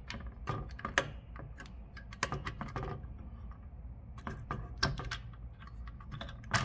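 Irregular sharp plastic clicks and snaps as the push-pin posts of an Intel stock CPU cooler are pulled up to unlatch it from the motherboard.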